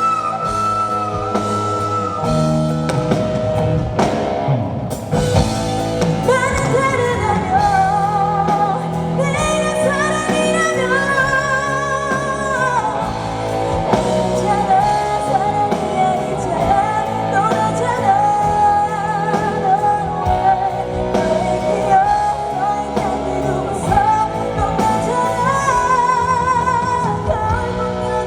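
Live pop ballad: a female singer with wide vibrato over a backing band, the voice coming in about five seconds in after a short instrumental passage.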